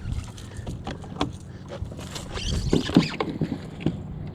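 Scattered sharp clicks and knocks of fishing tackle and paddle-kayak handling while a hooked trout is being fought and reeled in, the loudest knock about three seconds in.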